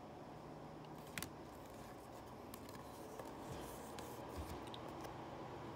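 Cardboard trading cards being handled and slid against one another as they are moved through a stack, with faint rubbing and scraping and a sharp click about a second in.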